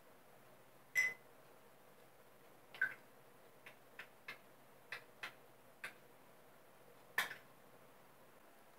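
Light taps and clinks on a drinking glass of water as a cookie is dropped in and handled: a scattering of small clicks, with two louder ones, about a second in and near the end, that ring briefly like glass.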